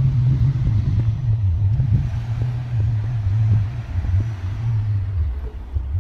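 Ford F-150 pickup's engine running steadily at low revs as the truck crawls past over a dirt trail, a low rumble with small dips in pitch.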